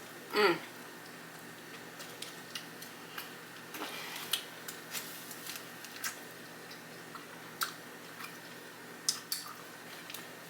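Close-miked chewing of a bite of Subway sub, crisp vegetables crunching in scattered short clicks and smacks. A short hummed 'mm' sound falls in pitch about half a second in.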